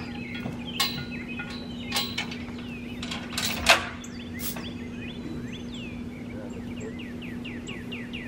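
Sharp metal clanks and clinks from the steel log arch and trailer being handled, the loudest about three and a half seconds in. They are followed by a bird singing a quick series of repeated down-slurred whistles, all over a steady low hum.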